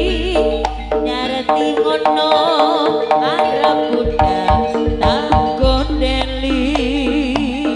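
Live jaranan gamelan music: hand drums beat busily under a wavering melodic line and held pitched tones, with a deep low tone that drops out midway and comes back.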